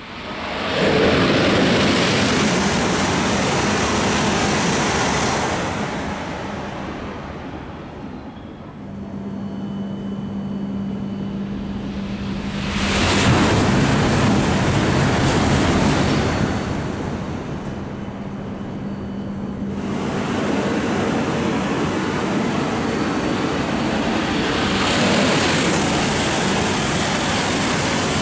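E5 series shinkansen passing through a station at over 300 km/h without stopping: a loud rush of air and wheel-on-rail noise that swells and fades, heard three times. A steady low hum runs between the first and third passes.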